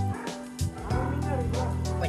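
Background music with long held bass notes, which drop out briefly about half a second in.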